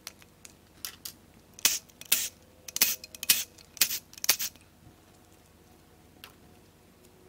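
Cordless electric ratchet spinning in short bursts, about eight in a row over three seconds, as it runs out the bolts of the timing chain guides and tensioner on a Mazda 2.3L MZR four-cylinder engine. A single faint click follows near the end.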